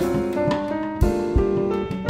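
Live jazz played on acoustic grand piano, double bass and a drum kit played with sticks. A loud drum-and-cymbal hit comes about a second in.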